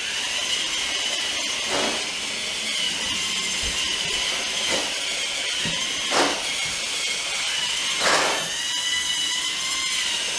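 Tracked robot's two small DC gear motors (with encoders) driving it forward: a steady high-pitched motor whine with track rattle, starting and stopping abruptly. A few knocks come as a foot shoves the robot, and the gyro steers it back on course.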